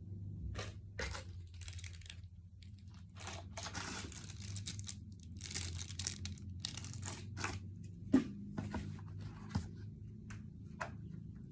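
Irregular crinkling and tearing of packaging being handled, with a few sharper ticks among the rustles.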